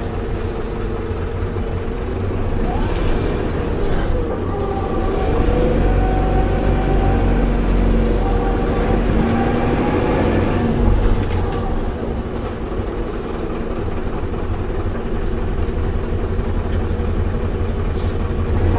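Optare Solo bus's Allison automatic gearbox whining over the low rumble of the engine and road. The whine's pitch dips and climbs back about four seconds in, and a steady whine holds through the middle.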